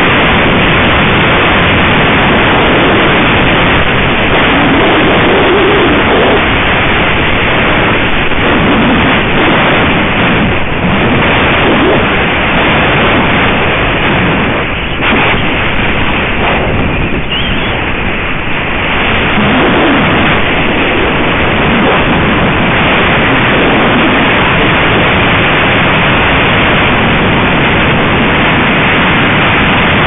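Loud, steady wind rushing over the microphone of a camera mounted on a flying gyrfalcon's head, easing briefly about halfway through.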